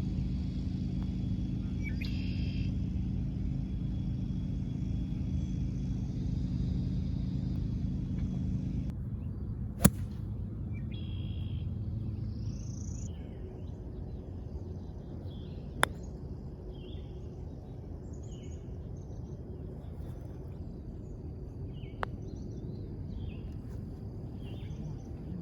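A low engine hum that cuts off about a third of the way in, followed by birds chirping and three sharp clicks of golf clubs striking balls, about six seconds apart, the first the loudest.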